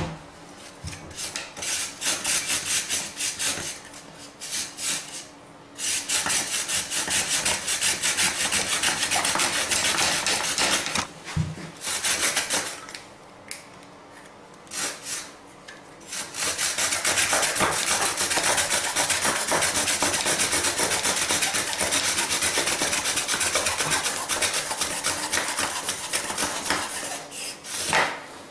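Bow drill in use: a pine spindle, spun back and forth by a shoelace bow, grinding into a pine fireboard with a fast rasping friction sound. It comes in several bouts with short pauses, the longest running from about 16 seconds in until just before the end.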